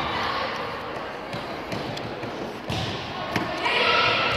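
Crowd chatter at a basketball game, with a ball thudding on the court four or five times and high squeaks starting near the end.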